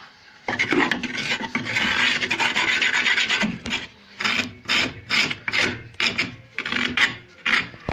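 Hand scraping or rasping: one long continuous scrape for about three seconds, then a run of about nine short, separate strokes.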